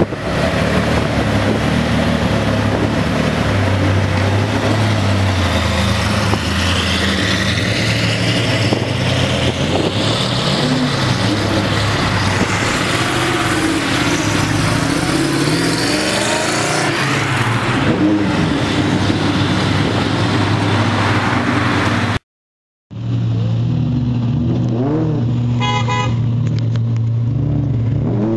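Supercar engines revving and pulling away one after another, starting with a Lamborghini Diablo's V12, the engine notes rising and falling as the cars drive past. After a brief dropout, another sports car passes with a short horn toot.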